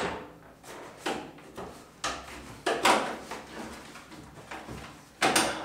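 Scrapes and knocks from handling a thick red power cable as it is pulled up and held against the underside of an inverter, about half a dozen short ones, the loudest near the end.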